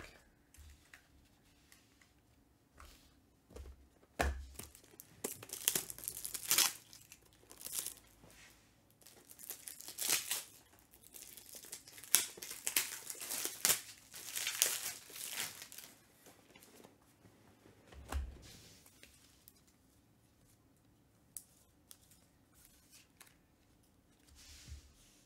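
Foil wrapper of a 2021 Panini Playbook football card pack being torn open and crinkled, in a run of ripping and rustling bursts lasting about thirteen seconds. After that come only a few faint rustles and taps as the cards are handled.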